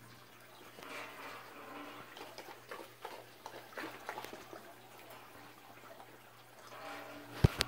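Samoyed puppy making soft whimpering sounds, with small clicking and mouthing noises in between, and one sharp knock near the end.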